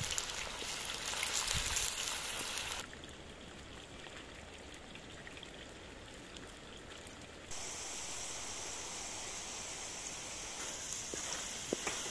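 Potato fries sizzling and crackling in hot oil in a steel pan over a campfire, stirred with a wooden spatula. The sizzle drops quieter about three seconds in and comes back stronger, with a thinner hiss, about halfway through; a few light ticks near the end.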